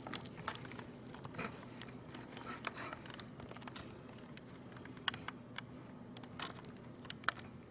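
Faint handling noise of a camera being moved and zoomed: scattered small clicks and rustles at uneven intervals, a few sharper ones in the second half, over a steady low hum.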